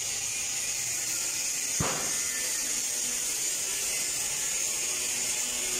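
Steady high hiss from TIG welding equipment, with one sharp click about two seconds in.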